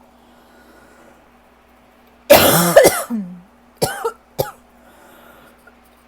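A person's dry, hacking cough from an asthma and allergy flare that the person thinks lingering bronchitis is likely making worse. After about two seconds of quiet comes a burst of several coughs ending in a short voiced sound, then two short single coughs.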